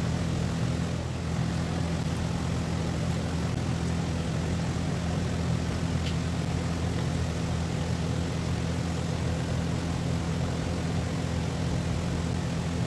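Steady low mechanical hum, like a machine or motor running.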